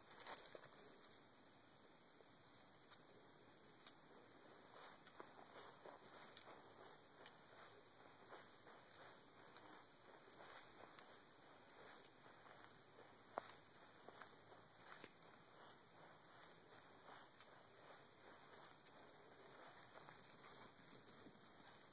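Near silence: faint steady chirring of crickets, pulsing evenly, with a few soft clicks and one sharper click a little past halfway.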